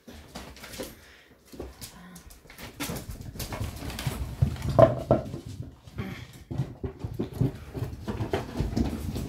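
Seven-week-old English Springer Spaniel puppies playing, with small dog sounds over a run of scuffling knocks and taps that gets busier from about three seconds in.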